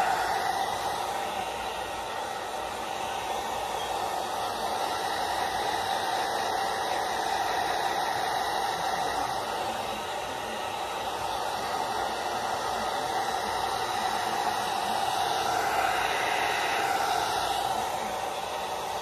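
Handheld hair dryer blowing, a steady airy whoosh that swells and dips a little as it is moved about.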